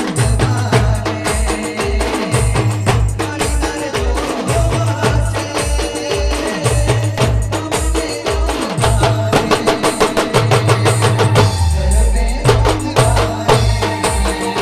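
An Adivasi band playing timli music: a fast, dense drum and percussion rhythm over a heavy low beat, with a repeating melodic line. The high percussion breaks off briefly about twelve seconds in while the bass swells, then the groove resumes.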